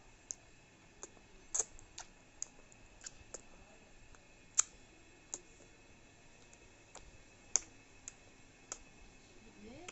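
Baby's mouth making sharp, irregular smacking clicks as it chews and works its lips, about a dozen over the stretch, with a brief rising voice sound right at the end.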